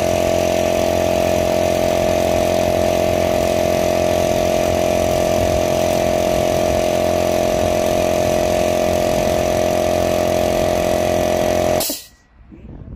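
Small oil-lubricated single-cylinder electric air compressor running steadily with a strong hum, just after a replacement part was fitted because it could not build pressure. It cuts off suddenly near the end.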